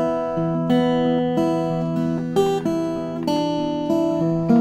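Solo acoustic guitar playing an instrumental tune, with plucked notes and chords that ring over one another and a new attack every half second to a second.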